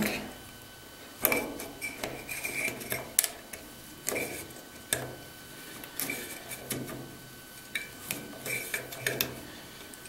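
Elevator emergency stop button on a KONE KSS car panel being twisted and tugged by hand, giving short bursts of plastic clicks and scrapes against its metal housing every second or so. The mushroom button is jammed in and will not release.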